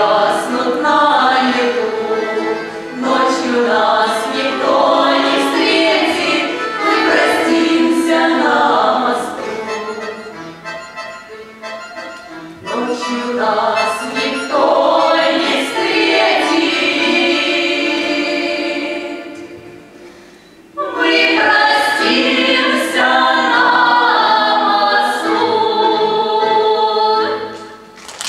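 Women's folk vocal ensemble singing a Russian song in harmony. The singing dips about 20 seconds in, picks up again, and falls away near the end as the song closes.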